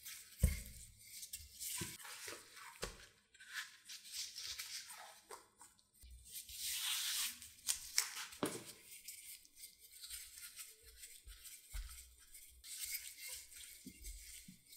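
Wooden rolling pin and latex-gloved hands working pie dough on a silicone mat: irregular rustling and scraping with a few soft thumps as the dough is rolled, folded and rolled out again.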